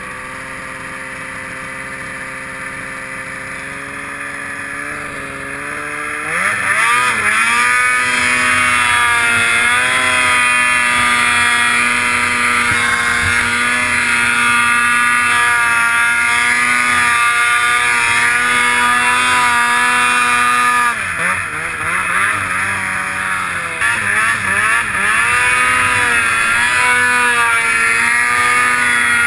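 Snowmobile engine running at low revs, then opened up about six seconds in to a loud, high-revving run whose pitch wavers as the sled ploughs through deep powder. About two thirds of the way through the revs fall away briefly and come back in several quick throttle blips before the engine runs high again.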